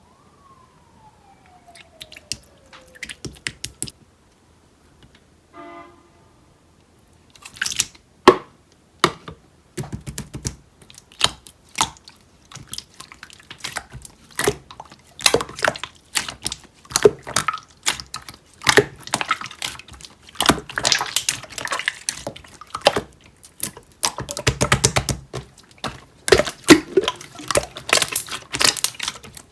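Clear jelly-textured slime being squished and pressed by hand, giving sharp wet clicks and pops that are sparse at first and come thick and fast from about seven seconds in. A single falling tone sounds near the start.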